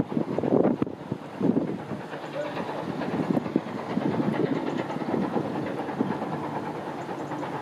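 Steam train running past at a distance: the steam locomotive working and its carriages rolling along the track, heard as a steady, fluctuating rumble.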